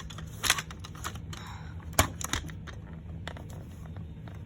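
Plastic clicks and taps of a First Alert SA67D smoke alarm being handled and pressed, the sharpest about two seconds in. Its horn is broken and does not sound.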